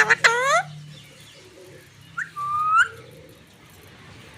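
Pet parrot calling: a loud, harsh call at the start, then a short note and a longer rising, whistle-like call about two and a half seconds in, and another call at the very end.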